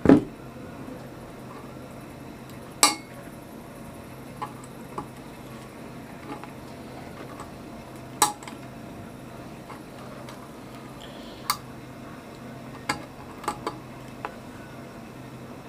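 Scattered sharp clicks and clinks, about eight in all and loudest near 3 and 8 seconds in, as a car-audio speaker's metal basket and wire terminals are handled on a tabletop while it is wired to an amplifier. A faint steady low hum runs underneath.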